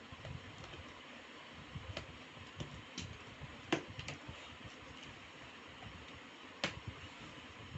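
Light clicks and taps from handling a laptop and its packaging during unboxing, scattered about one a second over a steady background hiss, with two sharper clicks in the middle and near the end.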